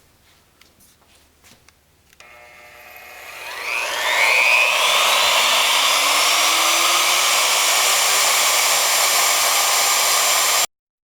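A few light clicks, then an electric router is switched on, its motor whine rising as it spins up over about two seconds, then running steadily at full speed before cutting off suddenly near the end.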